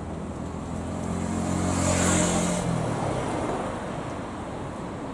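A motor vehicle passing on the road: engine hum and tyre noise swell to a peak about two seconds in, then fade away.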